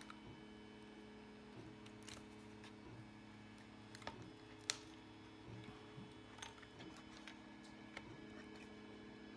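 Near silence over a steady low hum, broken by a few small sharp clicks and taps as the plastic housing and parts of an H0 model steam locomotive are handled and pulled apart. The sharpest click comes about halfway through.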